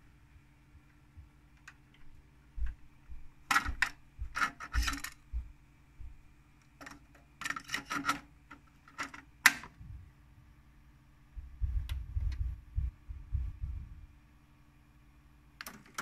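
Plastic clicks and rattles of a cassette being handled and loaded into a Pioneer CT-W205R double cassette deck, in several short groups, with the loudest single sharp click about halfway through. Low bumps follow, and a faint steady hum runs underneath.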